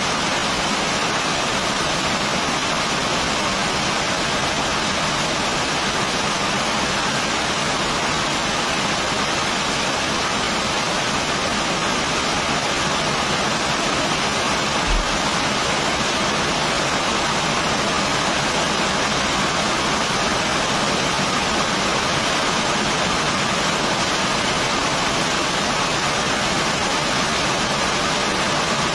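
Heavy rain falling as a steady, even hiss, with a single brief low thump about halfway through.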